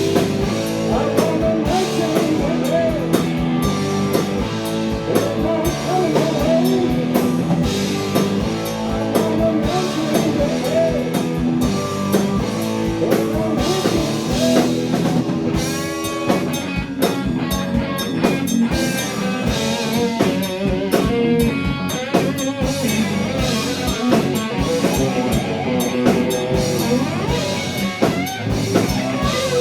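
Live heavy-blues rock band playing: electric guitar over a drum kit, with drum hits at a steady beat.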